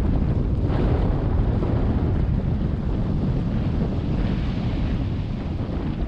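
Wind buffeting the microphone in a steady low rumble, with ocean surf washing underneath.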